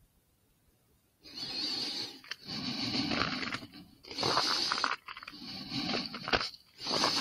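Slow footsteps crunching and rustling through dry grass and reeds, one step about every second, starting about a second in.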